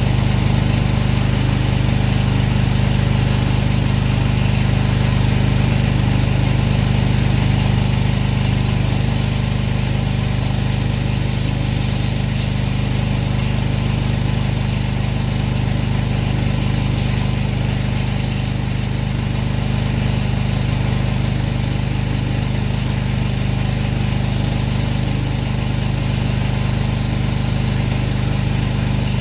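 Pressure washer's gas engine running steadily. A high hiss joins about eight seconds in and keeps on.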